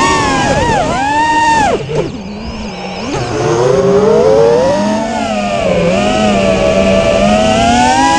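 Brushless motors and propellers of an Armattan Rooster FPV quadcopter on a 4S battery, heard from its onboard camera, whining and rising and falling in pitch with the throttle. A little under two seconds in the pitch drops sharply to a low, quieter hum for about a second as the throttle is cut, then climbs back and swells again.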